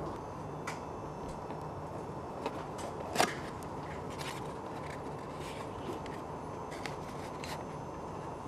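Hand handling of a small cardboard parts box as its lid flap is opened and a plastic fitting sleeve is taken out: a few faint clicks and rustles, with one sharper click about three seconds in, over steady low background hiss and hum.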